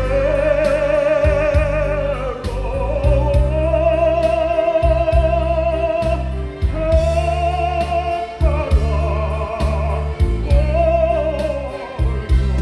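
A man singing through a microphone and PA over an instrumental accompaniment, holding long notes with vibrato in phrases a couple of seconds long, with a steady bass and drum beat underneath.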